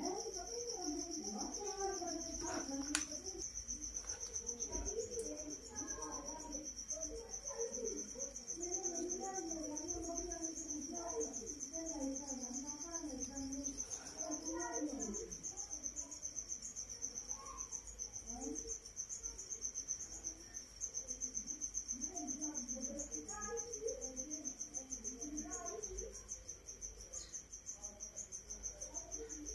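Crickets chirping in a continuous high trill, with faint voices talking in the background.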